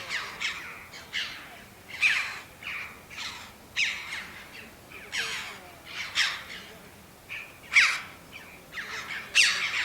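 Wild birds calling over and over: short notes that sweep down in pitch, one to two a second, some overlapping, with one louder call about eight seconds in.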